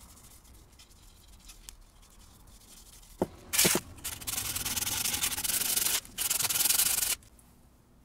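Sanding sponge scrubbed briskly along a dyed ash axe handle in two spells, about two seconds and then one second long, sanding the black dye off the surface so it stays only in the wood's pores. A couple of short knocks come just before the sanding starts.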